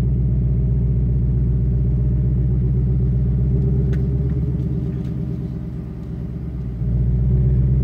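2018 Mustang GT's 5.0-litre Coyote V8 rumbling at low speed through an X-pipe resonator delete on its active exhaust, a deep and loud tone heard from inside the cabin with the windows down. Its level dips about five seconds in and comes back up near the end.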